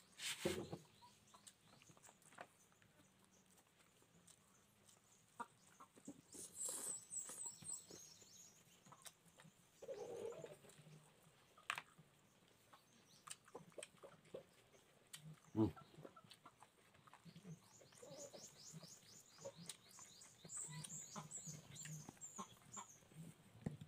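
Chickens clucking and small birds chirping in quick high trills, one about a quarter of the way in and a longer run near the end, over faint chewing and mouth clicks of someone eating by hand. Two sharper knocks stand out, one at the very start and one about two-thirds through.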